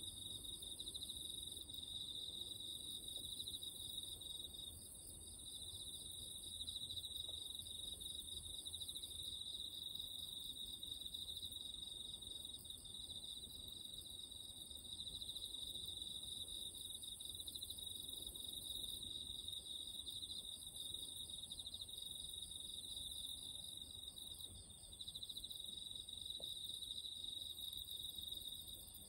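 Chorus of night-singing insects: a steady, rapidly pulsing trill, with a higher, hissier chorus above it that swells and eases every few seconds.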